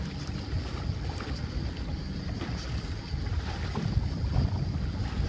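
Gusty wind buffeting the microphone on a small boat under way, with the boat's motor and water noise beneath.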